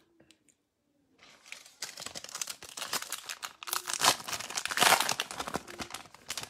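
Silver foil trading-card pack being crinkled and torn open by hand, a continuous crackling and rustling that starts about a second in and swells with louder rips in the middle.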